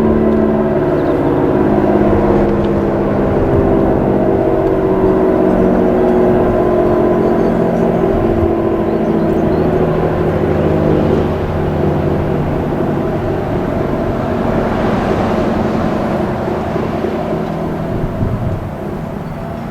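ACA Allertor 125 outdoor warning siren winding down at the end of its test: a low tone that slowly falls in pitch and gradually gets quieter.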